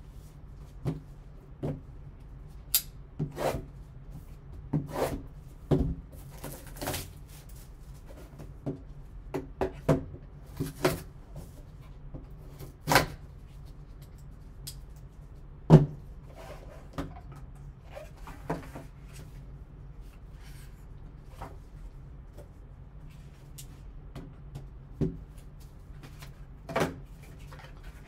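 A cardboard card box being opened by hand: a folding knife cutting the seal, with scattered clicks, taps and short rustles of cardboard and wrapping, and one louder knock about halfway through.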